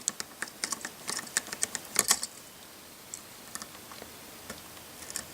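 Small plastic LEGO pieces clicking and rattling as the sleigh's chain hitch is unhooked and refitted by hand: a quick flurry of light clicks over the first two seconds, then a few scattered faint ticks.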